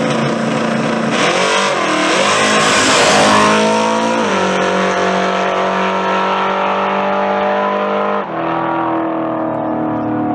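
G-body Chevrolet Malibu drag car launching at full throttle and pulling away down the strip. Its engine note wavers and climbs just after the launch, then steps down in pitch twice, about four seconds in and again past eight seconds, as it shifts gears.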